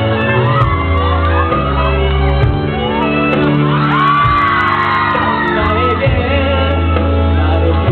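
Live band music playing loudly, with shouts, whoops and singing over it.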